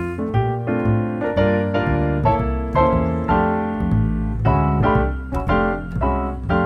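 Background music led by piano, with notes struck in quick succession over a low bass line.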